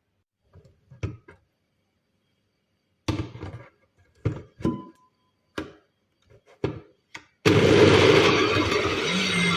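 A series of knocks and clunks as the blender is handled, then, about seven and a half seconds in, a blender switches on abruptly and runs steadily, blending orange, lemon and ginger pieces with water.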